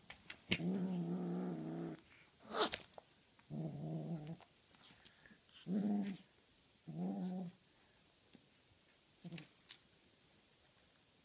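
A Tonkinese kitten growls with a feather toy in its mouth, guarding its catch. There are four low, steady growls: the first, about a second and a half long, is the longest, and the others are shorter. A few sharp clicks fall between them.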